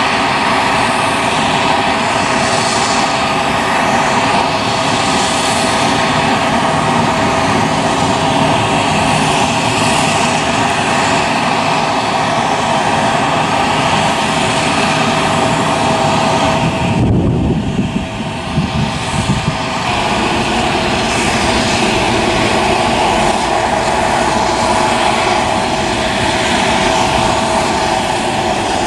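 Jet engines of a Boeing 787 airliner running with a steady whine over a dense rush as it taxis onto the runway and begins its takeoff roll; about seventeen seconds in the whine briefly drops away under a lower rumble.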